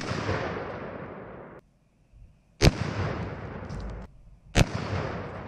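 Three rifle shots, each a sharp crack followed by about a second and a half of echo dying away; the second comes about two and a half seconds after the first and the third about two seconds later.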